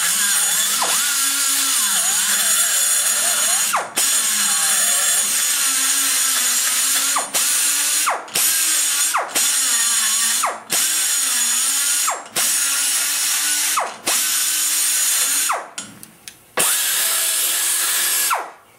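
Die grinder spinning a long-shank carbide burr into the exhaust port of an aluminum small-block Chevy cylinder head, its pitch wandering as it cuts the port roof. Several times it is let off briefly, the whine dropping in pitch before it spins up again, with a longer letup near the end.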